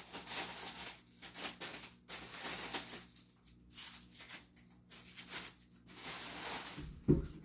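Clear plastic wrapping crinkling and rustling in irregular bursts as it is handled and pulled off a box, with a dull thump on the table near the end.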